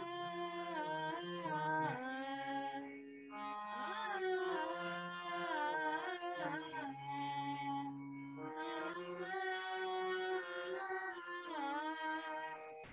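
A boy singing a Bengali song in long, held melodic phrases over a sustained instrumental accompaniment.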